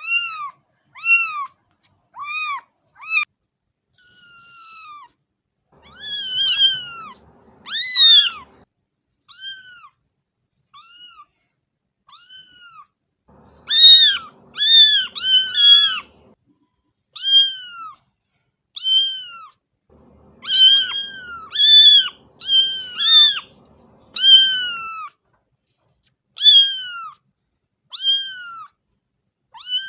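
A cat meowing over and over: short, high-pitched arching mews, some in quick runs and some spaced a second or more apart, loudest around the middle.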